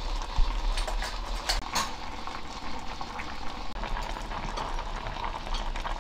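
Pot of spicy red sea bream and radish braise simmering on low heat, the reduced sauce bubbling steadily with scattered small pops.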